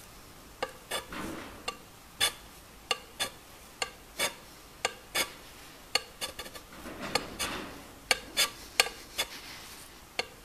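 Hand scraper taking short, sharp strokes across a surface grinder's cast-iron way rail, about two a second at an uneven pace, each stroke a scrape with a brief metallic ring. It is spot-and-scrape work, cutting down the high spots to bring the rail flat and parallel.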